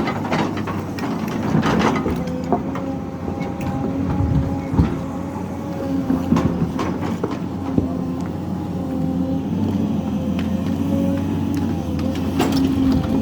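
Sany hydraulic excavator's diesel engine running steadily under load while it digs, with a wavering whine and a few sharp knocks and clanks from the working digging gear.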